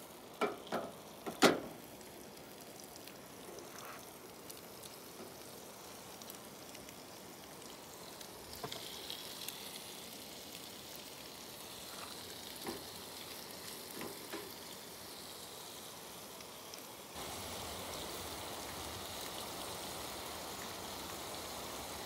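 Fish fillets sizzling as they fry in hot fat in a frying pan. There are a few sharp pops in the first couple of seconds, then a steady sizzle with scattered crackles that gets louder near the end.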